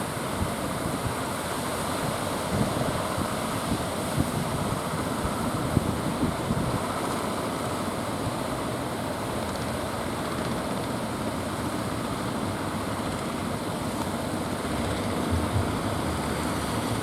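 Strong wind buffeting the microphone over the steady wash of surf. Near the end a low engine hum comes in.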